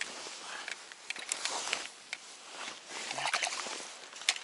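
Irregular rustling and handling noises with scattered sharp clicks, busiest in two stretches, one around a second and a half in and one around three seconds in, with a single sharp click near the end.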